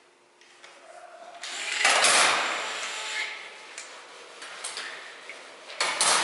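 Cordless drill-driver running in a short burst, driving the terminal screws on large can capacitors, then clattering metal parts and a few sharp clicks near the end.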